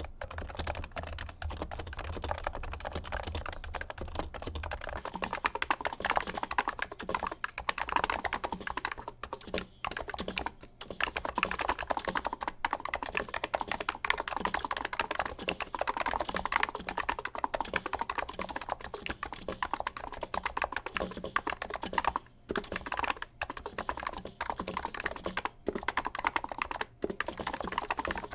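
Steady fast typing on keyboards with dense, overlapping key strokes and a few brief pauses. For the first few seconds it is a silenced 55g Topre Realforce keyboard, then a Niz keyboard with 55g switches, whose slightly scratchy key feel comes through in its sound.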